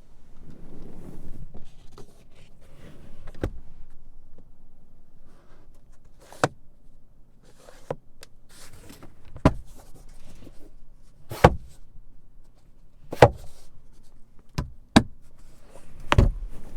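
A string of about eight sharp clicks and knocks, one to three seconds apart, with soft handling noise between them: parts of a car being worked by hand.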